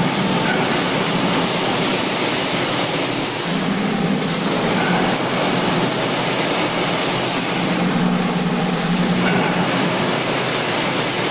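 Machinery running with a steady, loud mechanical clatter and rumble, with a low hum that swells twice.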